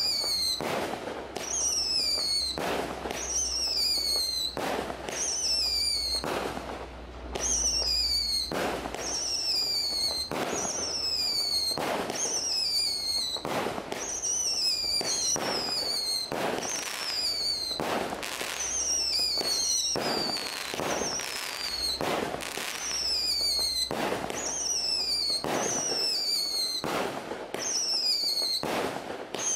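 A 25-shot multi-shot fireworks cake firing whistling tails in steady succession, about one shot a second. Each shot gives a high whistle that falls in pitch, then a bang as it bursts into peonies.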